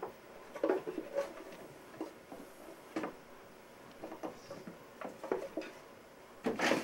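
Plastic toy dinosaurs being handled and moved about on wooden shelves: scattered light clicks and knocks, the loudest cluster near the end.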